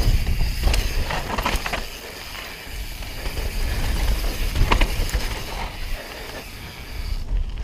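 Downhill mountain bike ridden fast on a dirt trail: wind rumbling on the bike-mounted camera's microphone, tyres running over dirt and loose stones, and a few sharp clicks and rattles from the bike over bumps.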